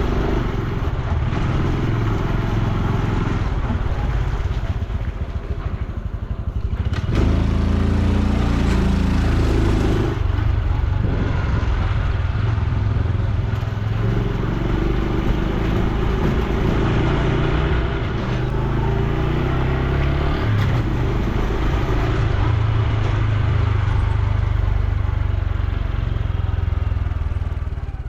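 Honda Super Cub C125's single-cylinder four-stroke engine and exhaust running on the move, with wind noise on the microphone. About seven seconds in it gets louder and its pitch climbs as the bike accelerates, and it picks up again a few times later.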